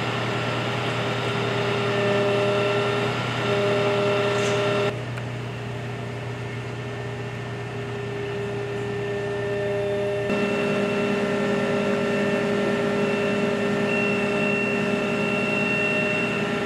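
Fire-brigade turntable-ladder truck's engine running steadily, a loud mechanical hum with several held pitches. Its tone changes abruptly about five and ten seconds in.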